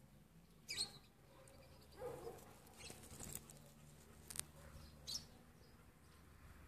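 A frog giving a few short, high squeaky calls, spaced a second or so apart.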